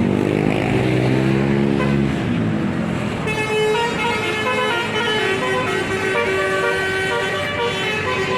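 A bus's engine note rising and falling in the first two seconds, then about three seconds in a telolet horn starts playing a tune of held notes that step from pitch to pitch.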